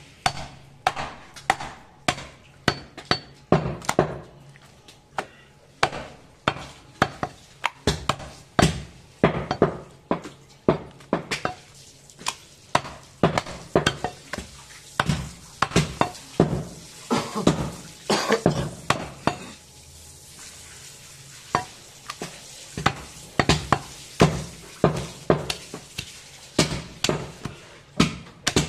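Butcher's cleaver chopping goat meat on a round wooden chopping block: an irregular run of sharp knocks, roughly two or three a second, with a short pause about twenty seconds in.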